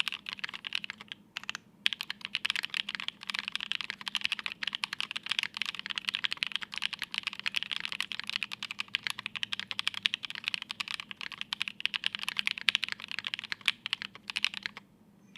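Fast, continuous typing on a plateless Nue mechanical keyboard with lubed Creamsicle linear switches, GMK keycaps and no foam inside. It pauses briefly about a second in, and the keystrokes stop just before the end.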